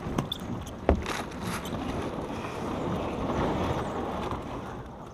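A sharp knock about a second in, then steady rushing wind noise on the microphone that fades near the end.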